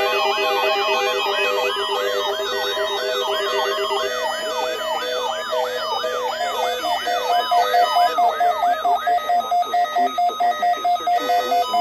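Overlapping electronic alert tones from emergency alert broadcasts: a rising, siren-like chirp repeats about two to three times a second over several steady tones. In the last few seconds it gives way to pulsing beeps at about three a second.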